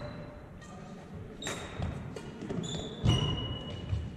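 Badminton rally: rackets smacking the shuttlecock twice, about a second and a half apart, the second hit the loudest. Between and after the hits, sneakers squeak sharply on the wooden gym floor.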